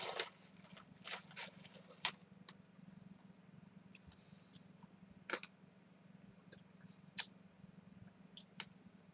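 Plastic snack bag of butter peanuts rustling briefly at the start, then scattered faint crunches and clicks as the peanuts are eaten, over a steady low hum.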